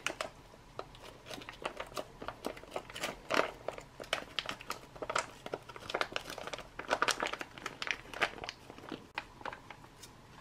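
Foil-laminate ration pouch crinkling and crackling as it is squeezed and shaken to empty rehydrated rice out of it, in irregular bursts throughout.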